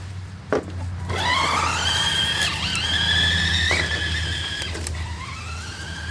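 Whine of the Kyosho Outrage RC truck's Titan 550 12-turn brushed electric motor and gears as it accelerates. The pitch rises for about a second and then holds, dips briefly near the end and climbs again. A sharp click comes about half a second in.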